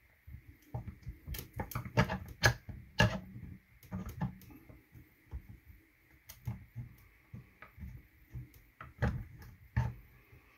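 Irregular clicks and light knocks of solid 3D-printed PETG parts being handled and fitted together as the elevation cam is put back into a shooting rest top.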